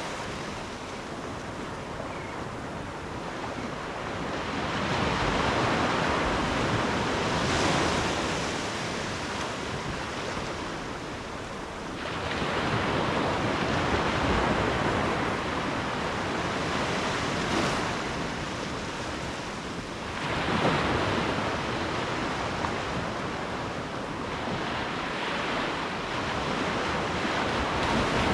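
Ocean surf: waves breaking and washing in a continuous hiss that swells and falls back every seven or eight seconds.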